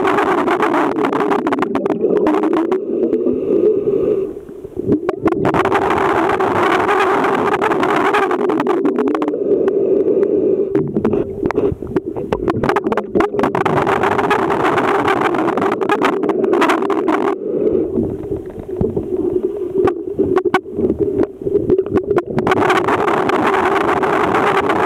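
Underwater noise in a swimming pool: a steady low hum under a rushing noise that thins out now and then, with scattered sharp clicks and knocks.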